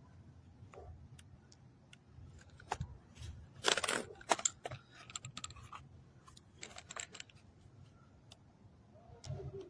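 Scattered light clicks and small clatters of things being handled, with two short louder clatters about four and seven seconds in.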